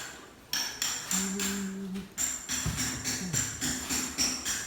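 Music with a rhythmic tambourine jingle, about three strikes a second, over a few held low notes.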